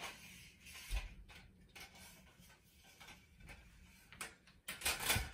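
Folded stainless-steel laundry drying rack being handled and lowered: its metal tubes and joints click and rattle, with a dull thump about a second in and a louder run of clicks and knocks near the end.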